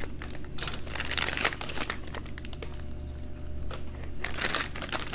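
Crinkling of an MRE's plastic-laminate accessory-pack pouch as it is handled and opened, in irregular rustles.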